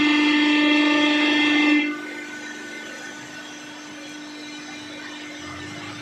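Hydraulic baling press's pump whining at one steady pitch under pressure. About two seconds in it drops to a quieter steady hum, as the load comes off.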